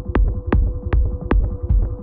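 Electronic dance music in a techno or trance style: a fast, steady kick-drum beat, about two and a half beats a second, over a held synth tone.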